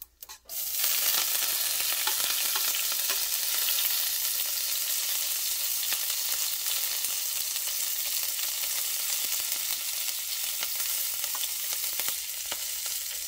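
Slit green chillies and curry leaves hitting hot coconut oil with mustard and cumin seeds, breaking into a sudden loud sizzle about a second in. The sizzle is dense and crackling, with small pops, and carries on steadily, easing slightly toward the end.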